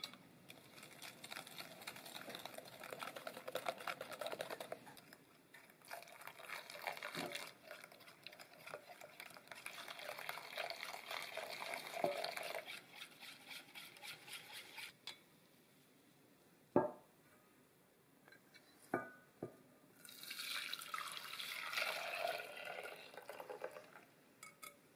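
A metal coil whisk beats custard mixture against a glass bowl with fast, steady scraping and ticking for about fifteen seconds. A few sharp knocks follow, then liquid is poured into a saucepan for a few seconds near the end.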